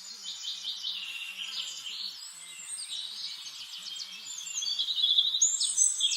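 Songbirds singing: a dense chorus of chirps and fast trills, loudest about five seconds in.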